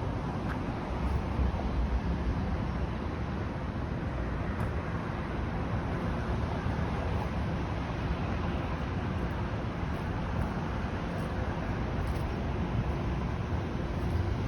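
Steady low rumble of outdoor noise with wind on the microphone; no distinct events stand out.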